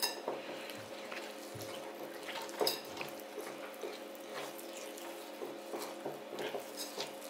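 Small wire whisk stirring thick lemon icing of icing sugar and lemon juice in a bowl: a wet swishing with irregular light clicks of the wires against the bowl, one a little louder about two and a half seconds in. A faint steady hum runs underneath.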